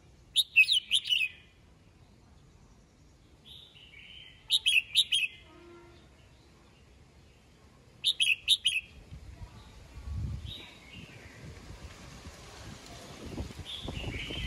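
Caged red-whiskered bulbul singing three short, quick phrases of song about four seconds apart, each lasting about a second.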